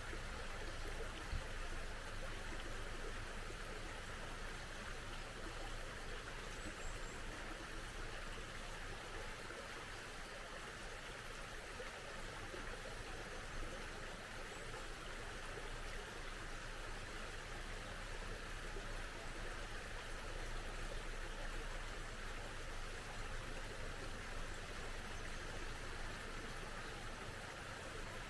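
A small mountain stream flowing steadily with an even rush of water, and a faint high bird chirp or two.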